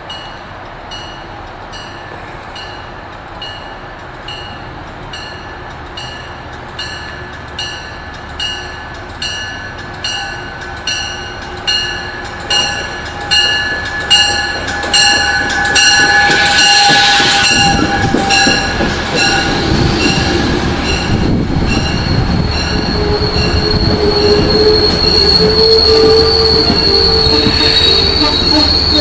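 An approaching train's warning bell rings steadily, about once every 0.8 seconds, growing louder as the train nears. About two-thirds of the way in the train comes in with a loud rumble, then its wheels and brakes set up a high, steady squeal as it slows into the station.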